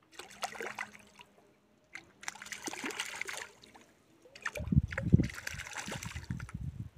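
A hooked rainbow trout splashing at the water's surface in three bursts, the last with heavy low thumps.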